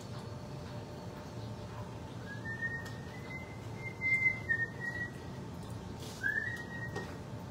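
A person whistling a short tune in two phrases, the second brief and opening with an upward swoop, over a low steady hum.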